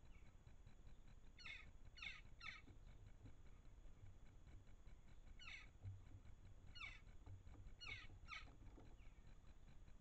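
Short, sharp calls from crow-family birds: seven faint calls, three close together early, two single ones in the middle, and a pair near the end.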